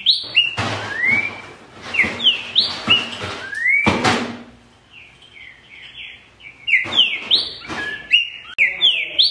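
A caged green-winged saltator (trinca-ferro) singing loud whistled phrases of quick rising and falling notes. Its singing goes quieter for a couple of seconds in the middle, then resumes. There is a short rush of noise about four seconds in.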